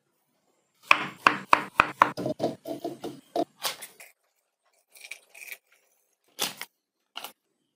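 Knife chopping fruit on a cutting board: a quick, rhythmic run of cuts in the first few seconds, then a few separate cuts and knocks.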